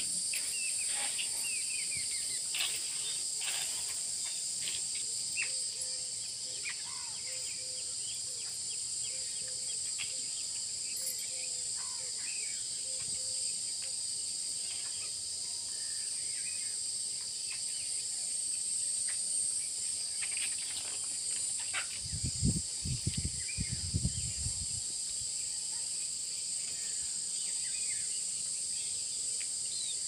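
Steady high-pitched trilling of insects, with scattered short bird chirps over it. A cluster of low bumps comes about two-thirds of the way through.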